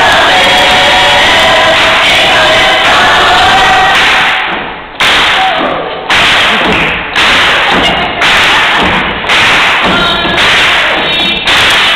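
Gospel choir and crowd voices, recorded so loud that they distort. About four seconds in, heavy thumps begin and repeat about once a second in a steady beat.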